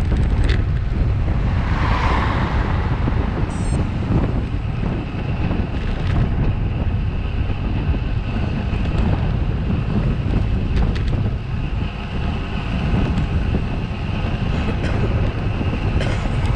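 Wind rumbling on a bike-mounted camera's microphone while riding, with a coach bus passing about two seconds in.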